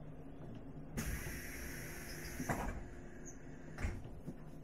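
Pneumatic door gear of a 485-series train car hissing as the doors close, with a thump as they shut and another knock about a second later, over the steady hum of the car's equipment.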